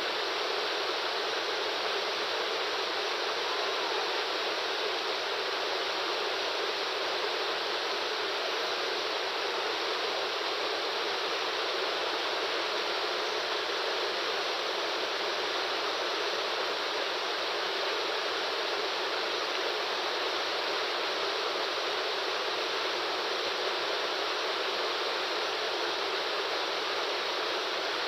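Waterfall: a steady, unbroken rush of falling water, a hiss with little deep rumble.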